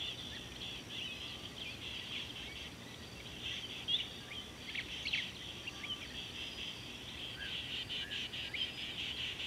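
Birds and insects calling together: a steady high chorus with many short chirps and a few quick sweeping bird calls, and a short run of rapid pulsed calls near the end.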